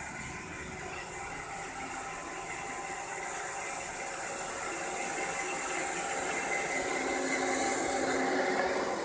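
Roomba robot vacuum running: a steady mechanical whir with a high hiss, getting gradually louder.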